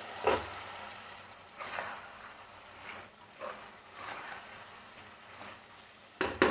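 Chicken pieces braising in spiced onion gravy in an uncovered pan, a low steady sizzling hiss with a few faint pops. A little after six seconds a spoon knocks against the pan several times as stirring begins.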